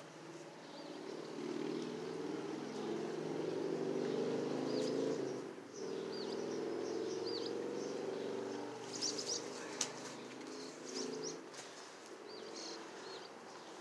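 A motor engine running steadily with a low hum that dips briefly in the middle and fades out near the end, while birds chirp now and then.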